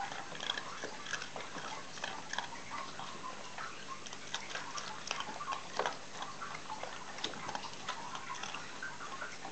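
Three-week-old Jack Russell Terrier puppies play-fighting: irregular light clicks and scuffles of small bodies and claws, with little puppy noises.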